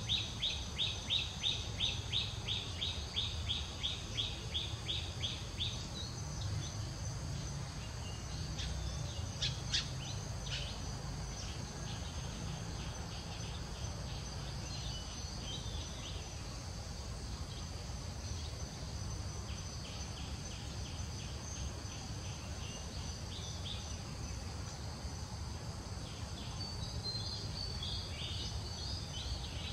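Forest ambience of birds and insects: a high call repeated about four times a second for the first six seconds, over a steady high insect drone, with a few scattered chirps later and again near the end.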